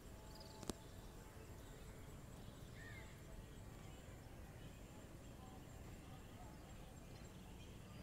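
Near silence: faint outdoor ambience with a low rumble and a thin steady high tone, broken by one sharp click a little under a second in and a brief faint chirp about three seconds in.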